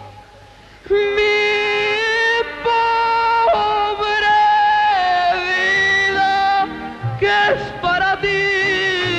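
Mariachi band accompanying a woman singing a ranchera in long, held notes with vibrato, after a brief pause about a second in.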